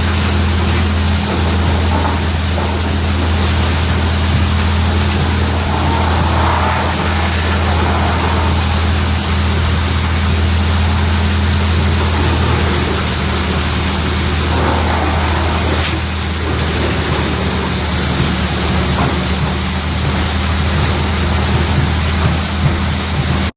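Stump crusher wood chipper running: a steady low engine drone under a dense, rough rushing noise that swells briefly a few times.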